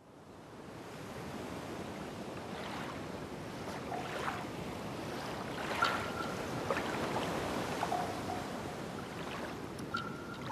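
Steady rubbing hiss of a cloth wiping flux and solder residue off a BGA chip's pads, with a few short squeaks and faint clicks. It fades in from silence at the start.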